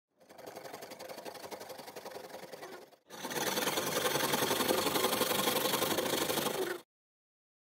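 A boiled potato being grated on a stainless steel box grater: quick rasping scrapes, one after another. A quieter stretch of the same scraping breaks off sharply about three seconds in, and the louder grating that follows stops abruptly near the end.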